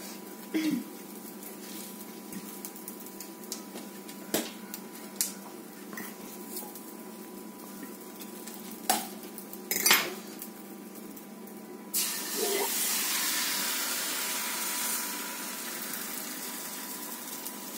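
A fork clinks and scrapes against a frying pan as slices of fried bread are turned, with scattered sharp clicks. About twelve seconds in, a sudden loud sizzle starts as a liquid egg mixture is poured into the hot pan, and it keeps going.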